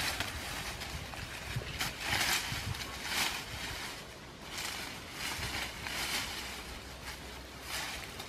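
Dry leaf litter crunching underfoot and leafy branches rustling as they are grabbed and pulled, in several short, irregular crunches.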